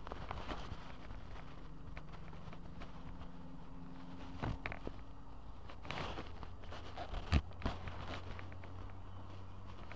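Footsteps and scattered short knocks over a steady low hum, with one sharper knock about seven seconds in.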